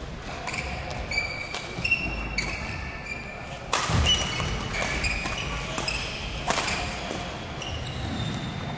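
Badminton play on an indoor court: sports shoes squeaking on the floor with thuds of footwork and sharp racket hits on the shuttlecock, the loudest hit about four seconds in.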